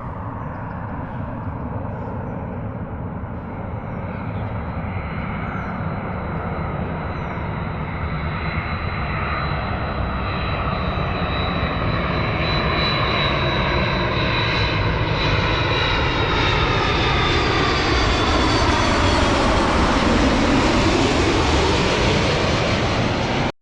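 Jet airliner passing low overhead, growing steadily louder: a high fan whine over the rush of jet noise, with the tone sweeping down and back up as it goes over. The sound cuts off suddenly at the end.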